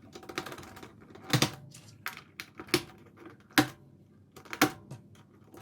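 Keycaps being pushed back onto a mechanical keyboard's switches, each snapping into place with a sharp plastic click, about one a second.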